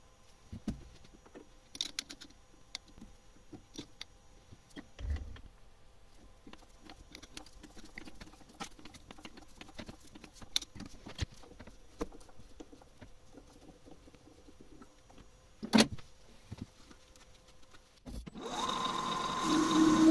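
Scattered small metal clicks and ticks as an M5 thread is tapped by hand into a metal bar held in a lathe chuck, with one sharp clack about three-quarters through. Near the end the metal lathe starts up and runs with a steady whine.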